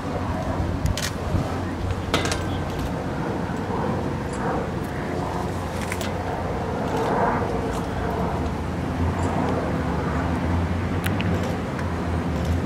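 Outdoor ambience: faint, indistinct voices over a steady low hum, with a few sharp clicks.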